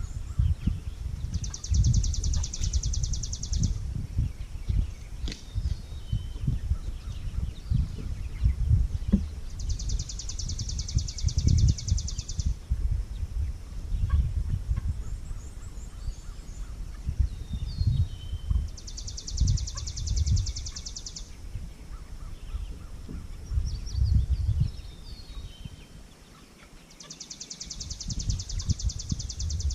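Outdoor field sound, dominated by a gusty low rumble on the microphone. Over it comes a high, fast buzzing trill of about two and a half seconds that repeats four times, roughly every nine seconds, and between the trills there are a few short falling peeps from young meat chickens.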